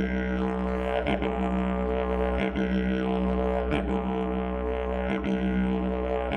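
Didgeridoo playing a steady low drone with many overtones, punctuated by a sharp rhythmic accent about every second and a quarter.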